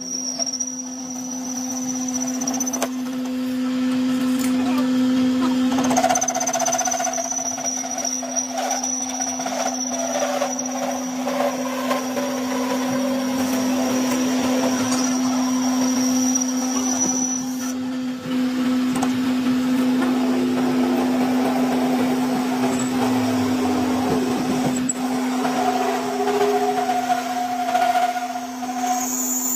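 An electric workshop machine motor running steadily with a constant hum. A rougher working noise rises and shifts over it, as if the tool is under varying load on metal.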